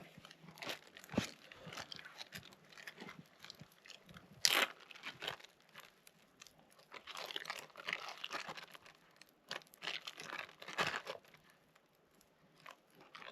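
Irregular crunching and crinkling handling noises, a run of short rustles and clicks with louder bursts about four and a half seconds in and again near the middle and later on.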